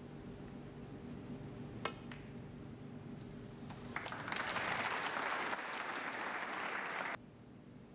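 A single sharp click of a snooker ball being struck about two seconds in, then audience applause from about four seconds that cuts off abruptly near the end.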